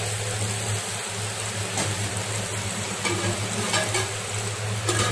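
Thick stuffed brinjal curry sizzling in a metal pot on a gas stove, over a steady low hum. A few light clinks of metal utensils on the pot come through the sizzle.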